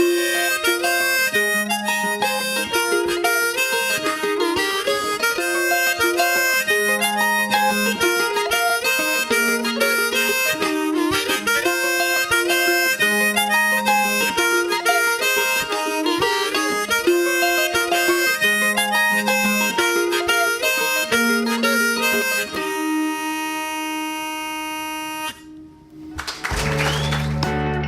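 Instrumental outro of an Irish folk ballad: a melody instrument plays a quick tune over a lower moving line, ending on a held chord about 23 seconds in. After a brief dip, the guitar of the next song starts near the end.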